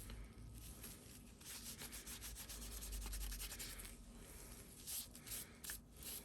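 Faint rubbing strokes on the case of a freshly laser-engraved black Zippo lighter as it is cleaned up, with a few separate strokes near the end.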